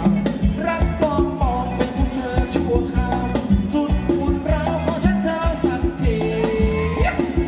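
Live Thai dance-band music: a steady drum-kit beat under a lead melody with gliding notes.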